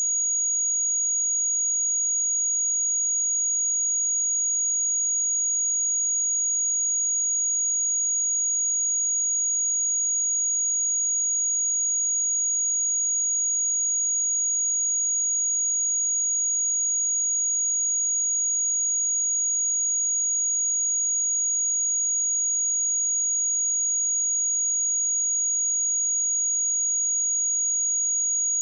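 A pure 6727 Hz sine-wave test tone, one steady high-pitched whistle held at a constant level without a break.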